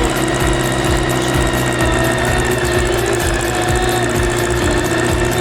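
A motor or engine running steadily at constant speed, with a steady hum and a thin, high, steady whine.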